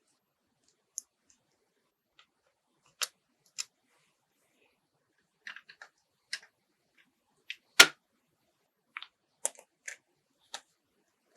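Scattered small clicks and taps from small parts and tools being handled while working on a 1:24-scale model car, with one sharper knock about eight seconds in.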